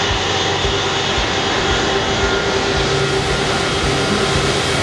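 Airbus Beluga XL's twin Rolls-Royce Trent 700 turbofans running at taxi power: a steady whine over a broad, even rush.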